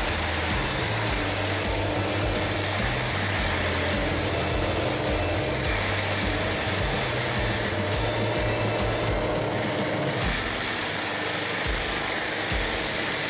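Brush-clearing machine running steadily, a mechanical engine drone with a wide hiss of noise above it; the low drone drops away about ten seconds in.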